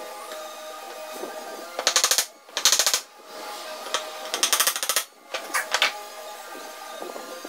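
Four short bursts of rapid, sharp knocks: a hammer tapping glued wooden dowels into the end of a wooden door rail.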